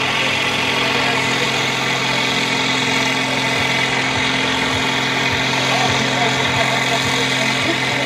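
International farm tractor's diesel engine running at a steady speed under load as it slowly pulls the brake sled, with no revving or change in pitch.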